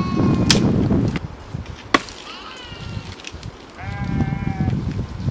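Two sharp chops of a blade cutting into tree branches, about a second and a half apart, with wind on the microphone. A few short, high, wavering calls sound between the chops.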